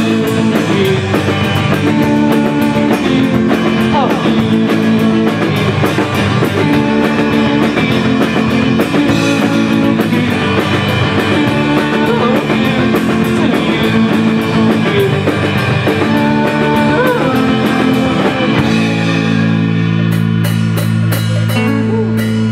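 Rock band playing live, guitar and drum kit in an instrumental stretch without vocals. About 19 seconds in the drums stop and a held chord rings on, with a few last hits near the end.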